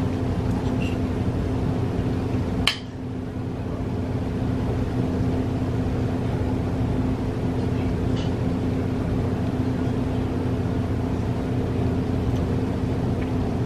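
Steady mechanical humming with a constant low tone, which sounds like it's coming from outside. One sharp click cuts across it about three seconds in.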